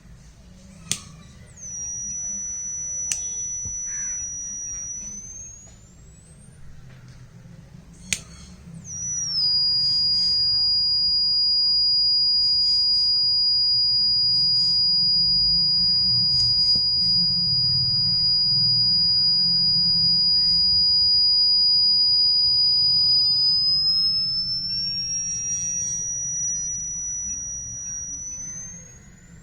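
Piezo buzzer of a DIY diode-sensor fire alarm sounding a high steady electronic tone twice: a short burst of about four seconds, then a longer one of about twenty seconds. Each time the pitch rises as the tone fades out. Sharp clicks come about one, three and eight seconds in.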